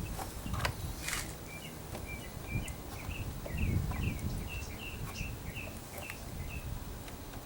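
A small bird giving a quick series of short chirps, about two a second, over a low rumble, with a couple of sharp clicks near the start.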